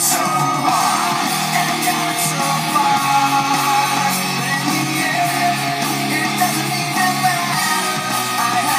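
Guitar-led music playing through a car's factory radio speakers, streamed from a phone over a plug-in FM transmitter, with no static.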